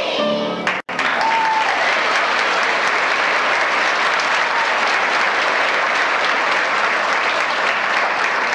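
The last note of a children's chorus, cut short by a momentary dropout about a second in, then an audience applauding steadily.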